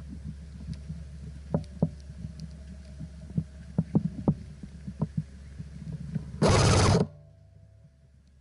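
Low rumble of a moving body-worn camera with scattered clicks and thumps, like footsteps through brush, then one loud rushing burst of about half a second near the end, after which the rumble falls away.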